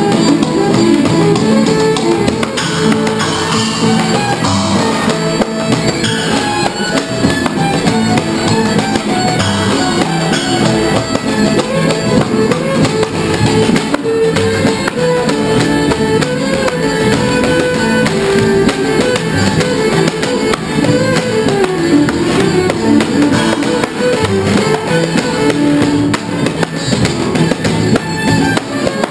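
A live old-time string band playing an upbeat tune: fiddle and banjo over a bass, with a washboard and cymbals keeping the rhythm.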